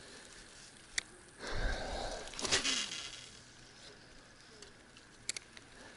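Handling of a spinning rod and reel: a sharp click about a second in and two quick clicks near the end, with a breathy exhale in the middle.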